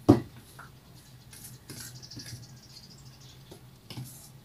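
A spoon stirring and scraping in a mixing bowl, folding melted chocolate into whipped cream for mousse. A sharp knock of the spoon against the bowl comes right at the start, then soft scattered scrapes and taps.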